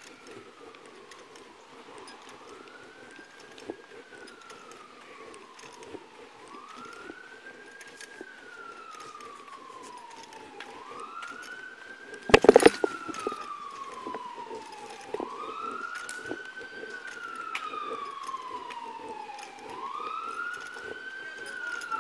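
An emergency-vehicle siren in wail mode, rising and then sliding slowly down, one cycle every four to five seconds, growing louder as it approaches. About halfway through comes one brief loud knock, the loudest sound.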